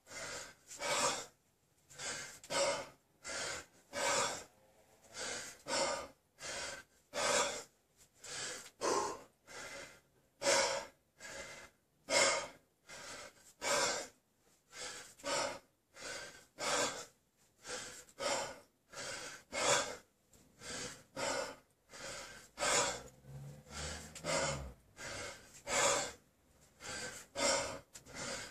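A man's heavy, rhythmic breathing as he snatches a 32 kg kettlebell, with short forceful breaths about once a second in time with the reps.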